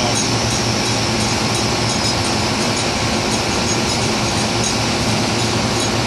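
Steady, loud drone of offshore drilling rig machinery: a constant low hum under even rushing noise.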